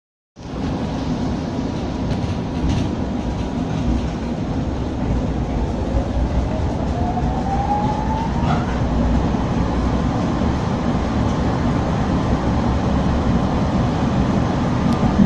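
Ride inside a 1966 ČKD Tatra T3 tram with classic resistance control, starting about half a second in: steady rumble of the wheels on the rails, with a whine that rises in pitch between about five and eight seconds in as the tram picks up speed.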